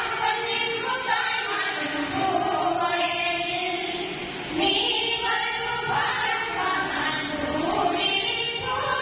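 A group of voices singing together in long, held notes that glide up and down.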